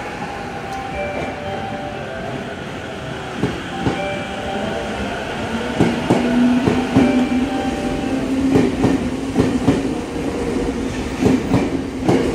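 Toyo Rapid Railway 2000 series electric train pulling out of the station. Its wheels cross rail joints in regular pairs of clicks, and a steady low motor tone comes in about halfway through as it gathers speed.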